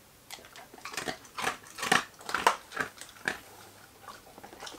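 A dog crunching and chewing a small dry star-shaped dog biscuit: a run of crisp, irregular crunches about two or three a second, growing fainter near the end.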